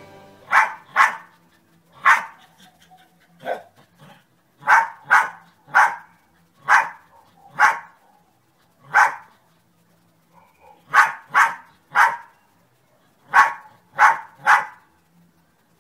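A dog barking repeatedly: about sixteen short, sharp barks in ones, twos and threes, with a pause of a second or so about two-thirds of the way through.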